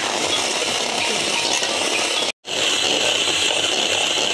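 Electric hand mixer running, its steel beaters whirring and clinking against a stainless steel bowl as they beat whipping cream powder with milk. The sound cuts out for a moment a little past halfway, then resumes.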